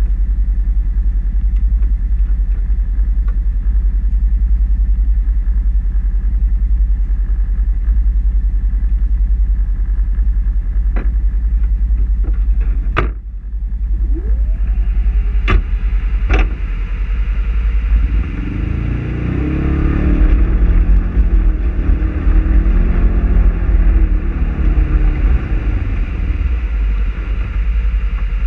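Polaris RZR side-by-side engine idling with a steady low rumble, with a few sharp clicks around the middle. It then revs up and pulls away, its pitch rising and then easing back.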